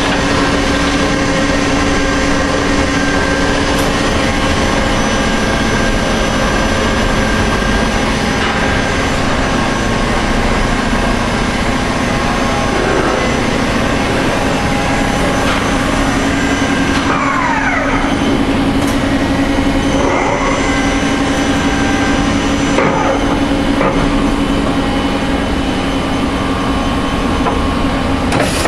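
Mori Seiki MV-45/40 vertical machining center running under power: a steady mechanical noise with a low hum, and a few short whines sliding in pitch about two-thirds of the way in.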